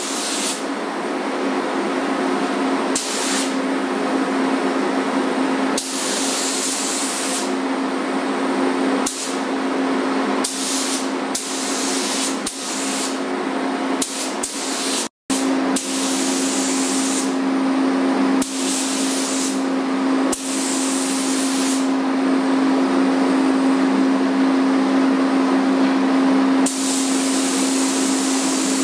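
Compressed-air paint spray gun hissing as paint is sprayed on metal trim molding, louder in bursts of one to two seconds each time the trigger is pulled, over a steady low hum. The sound cuts out for a moment about halfway.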